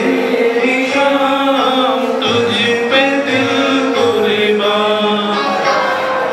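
A man singing a melody solo into a handheld microphone, in long held and sliding notes.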